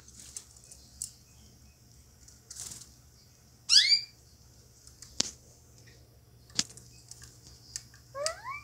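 Caged canaries: a quick run of rising chirps about four seconds in and three short rising chirps near the end, with scattered light clicks and a brief wing flutter in between.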